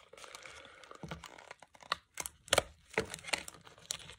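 Clear plastic lure packaging crinkling and tearing in the hands: a run of sharp crackles, the loudest a little after two and a half seconds and again about three seconds in.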